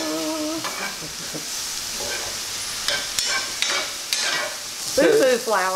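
Mushrooms, onions, celery and garlic sizzling steadily as they sauté in a pan on the stove, with a utensil stirring them.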